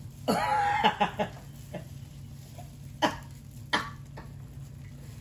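A short vocal sound about half a second in, then scattered sharp clicks and snaps from eating a seafood boil with gloved hands, over a steady low room hum.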